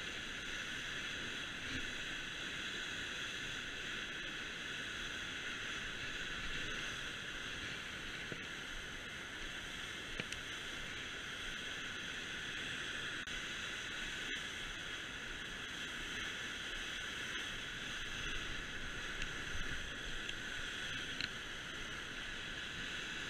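Water rushing steadily over a dam spillway into the churning pool below, with a few faint clicks along the way.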